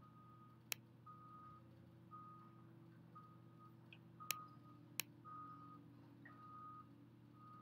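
Near silence: a faint steady hum, with a soft high beep repeating about once a second, and three sharp computer-mouse clicks as a text box is selected and moved.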